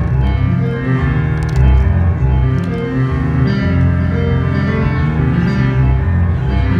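Live keyboard passage with organ- and piano-like tones, played loud over a heavy low end.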